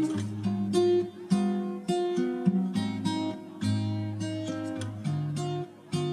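Background music led by plucked acoustic guitar, a steady run of picked and strummed notes.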